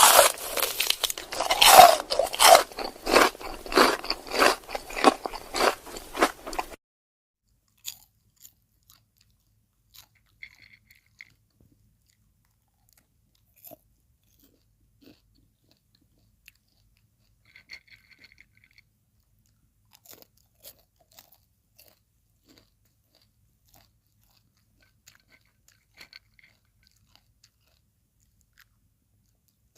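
Popcorn being chewed close to the microphone: loud crunching in a steady rhythm of about two chews a second, which cuts off abruptly about seven seconds in. After that only faint, scattered crunches and clicks.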